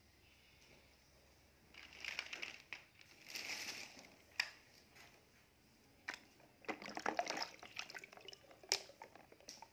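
Water splashing and sloshing in a plastic tub as a hand moves floating plastic toys about, in several short bursts, with a few sharp clicks.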